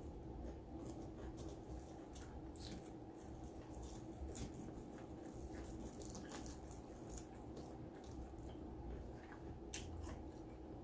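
Faint close-up chewing of a BLT sandwich: scattered soft clicks and crunches from the mouth over a low steady hum.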